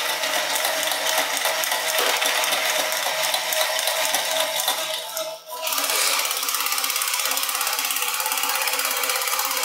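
The small electric motor and plastic gears of a battery-powered coin-eating dog bank whirring with a rapid ticking as the toy dog bends to eat a coin. It stops briefly about five seconds in, then runs again.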